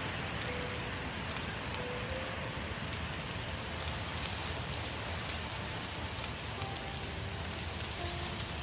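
Forest fire burning: a steady rushing hiss with scattered sharp crackles and pops.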